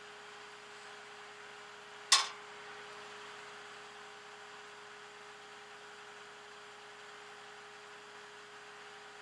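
Steady hum of a flatbed tow truck running while parked, with one sharp clack about two seconds in.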